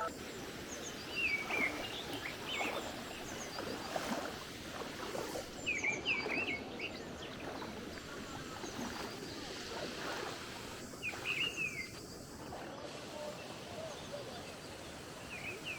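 Small songbirds chirping in short groups of quick, falling notes, four or five times, over steady outdoor background noise.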